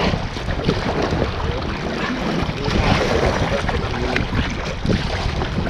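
River water splashing and lapping around a small boat running down a winding river, with wind rumbling on the microphone.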